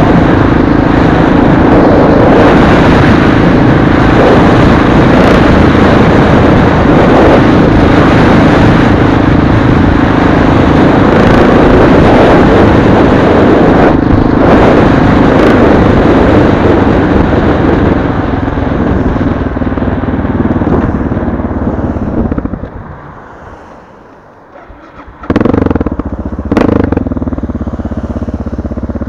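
Motorcycle riding at speed: loud, steady wind rush on the bike-mounted microphone with the engine's drone underneath. Well into the ride it slows and goes much quieter. Then two sudden loud bursts come a little over a second apart, and the engine runs on at low speed.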